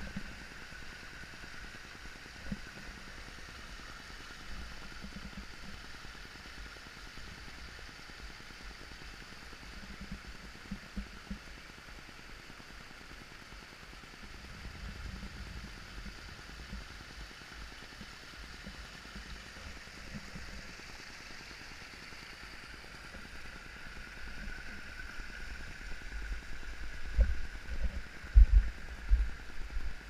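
Small waterfall and creek water rushing steadily over rocks. Near the end, a few loud low bumps on the microphone.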